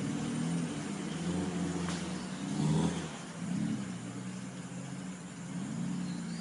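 4x4 vehicle's engine running and revving up and down as it drives along a rough dirt track, loudest about halfway through.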